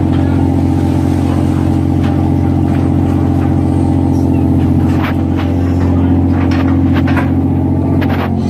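Crab fishing boat's engine running with a steady low drone, with a few knocks and clatters on deck between about five and eight seconds in.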